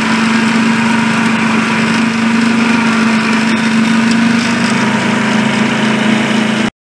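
A 7.25-inch gauge miniature works locomotive running steadily along the track, its drive giving a steady hum with running noise. The sound cuts off abruptly near the end.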